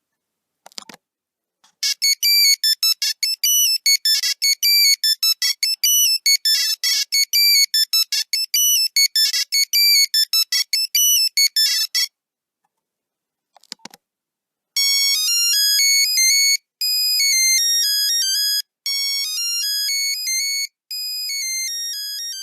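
Nokia 3310 monophonic ringtones, high-pitched beeping notes. First comes a fast staccato melody of short notes for about ten seconds. Then, after a couple of faint clicks, a second, slower melody of held notes follows in four phrases.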